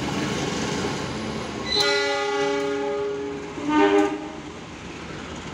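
Passing freight train running on the track, with a train horn sounding a long chord-like blast, then a short second blast.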